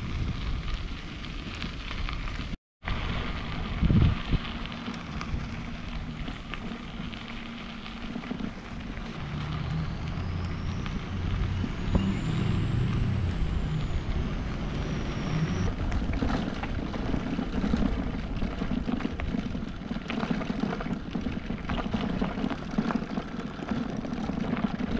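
Wind buffeting the microphone of a camera on a moving bicycle, mixed with the crackle and rumble of tyres rolling over a gravel trail. The sound cuts out for a moment about three seconds in.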